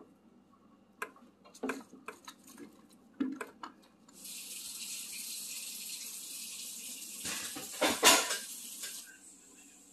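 Kitchenware being handled: a few light knocks and clicks of a can and dishes, then a steady hiss lasting about five seconds that starts and stops abruptly, with a louder clatter of a pot near the end of it.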